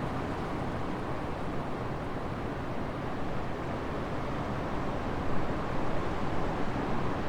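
Wind on the microphone and water rushing past the hull of a sailboat underway, a steady noise that grows a little gustier near the end.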